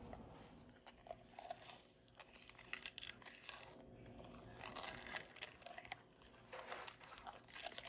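Plastic spoon stirring thick vanilla instant pudding in a glass bowl: faint wet squishing and scraping, with light scattered clicks of the spoon against the glass.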